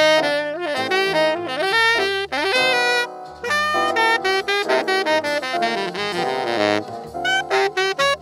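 Saxophone playing a jazz ballad line, held notes joined smoothly, ending in a run of quick short notes near the end.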